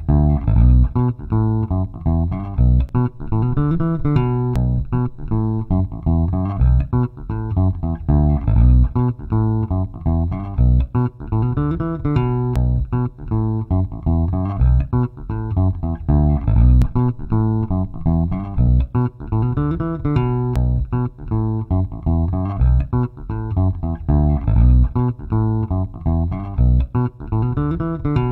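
Funk electric bass guitar loop at 120 bpm playing back, repeating its riff. It runs through an equalizer with a boost in the lows and a dip in the low-mids.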